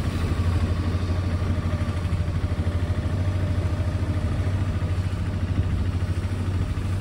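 Auto-rickshaw's small engine running with a steady, rapid chug, heard from inside the open passenger cabin while the vehicle is driving.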